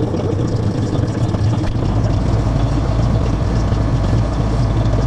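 Tractor engine running steadily under load, with a deeper low rumble coming in about two seconds in.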